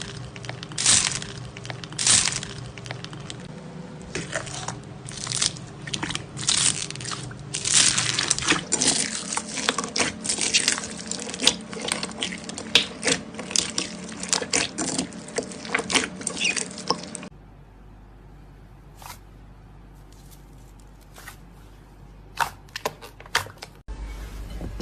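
Slime being squeezed and worked by hand, giving a dense run of crackling clicks and pops. About 17 seconds in it cuts off suddenly, and only a few sparser, quieter clicks follow.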